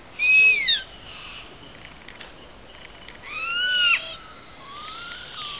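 Owls squeaking at each other: three squeaky calls that each rise a little then slide down in pitch, a loud one at the start, the loudest about three seconds in, and a fainter one near the end.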